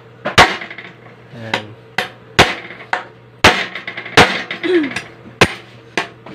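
Hammer striking the heads of motor-mounting bolts to drive them into a sewing-machine table top: about eight sharp, irregularly spaced blows, each with a short ring.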